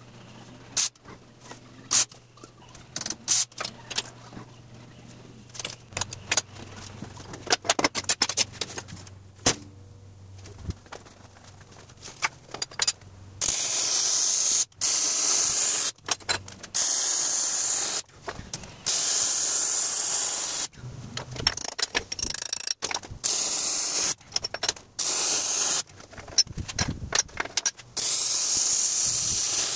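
Wire-feed (MIG) welding arc on steel: a few short crackling bursts from tack welds first, then from about halfway through, repeated weld runs of loud steady crackling hiss, each a second or two long with short pauses between.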